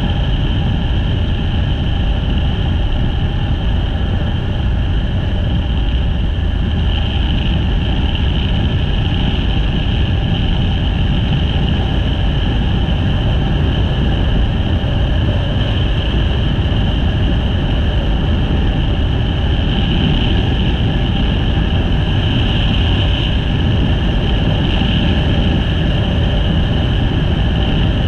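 Motorcycle riding at a steady cruise: the engine's even drone with steady pitch, under a heavy low rumble of wind and road noise.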